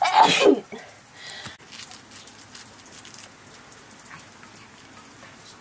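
A brief loud falling cry at the very start, then light, irregular snicks of a curved sickle blade slicing a handful of greens and fern fiddleheads.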